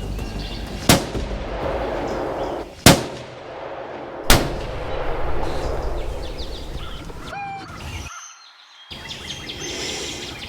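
Three rifle shots from a 6.5 Creedmoor, each sharp and loud with a short echo. The first comes about a second in, the next two seconds later, and the last about a second and a half after that.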